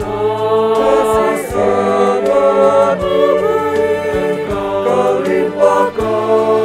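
Mixed choir of men and women singing an Indonesian Christian worship song, holding long notes in harmony; the singing swells louder as it begins.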